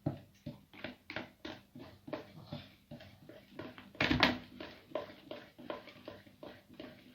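Cake batter being beaten by hand in a bowl: a regular rhythm of wet strokes, about three a second, with one louder knock about four seconds in.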